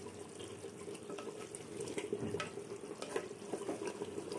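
Mutton curry bubbling in a clay handi as a wooden spatula turns it over, with small irregular pops and soft scrapes of the spatula against the pot.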